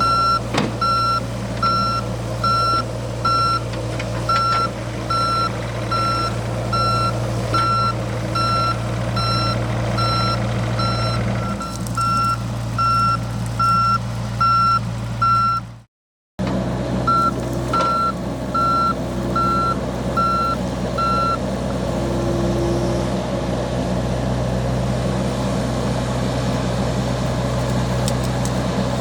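John Deere 60G compact excavator's diesel engine running steadily while its travel alarm beeps in an even rhythm, about one and a half beeps a second. The beeping breaks off briefly a little past halfway, returns for a few seconds and then stops, leaving the engine running alone.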